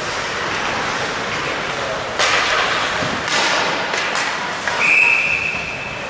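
Ice hockey play in an arena: sharp knocks of sticks, puck and boards over steady arena noise, then a referee's whistle about five seconds in, one steady high note held for over a second, stopping play.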